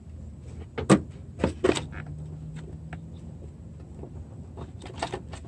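Handling noises of a car door's mirror wiring harness being pulled through a hole in the door's plastic inner shield: a few short, sharp clicks and scrapes about a second in and again near the end, over a low steady hum.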